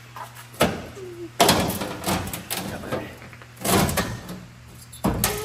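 Underbody panel of a Corvette C8 Z06 being worked loose and pulled down from beneath the car on a lift, in several bursts of scraping, knocking and clattering. A low steady hum runs underneath.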